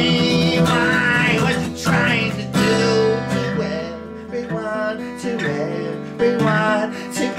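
Music: a song with strummed acoustic guitar.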